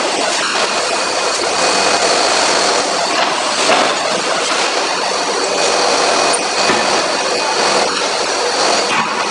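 Steady forging-shop machinery din with a hiss, broken by a few faint knocks, the plainest a little under four seconds in.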